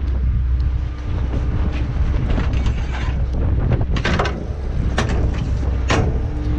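Steady low rumble of the lobster boat's engine, with wind noise on the microphone. A few sharp knocks and rattles come about four, five and six seconds in as a mesh lobster pot is handled on deck.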